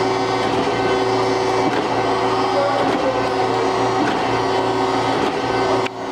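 Chevalier FSG-1640AD surface grinder running: a steady machine hum from its 5 hp spindle motor and drives as the table traverses and cross-feeds, with a brief dip in level near the end.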